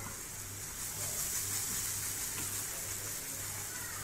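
Ghee and banana pancake batter sizzling steadily on a hot dosa tawa as the batter is spread out.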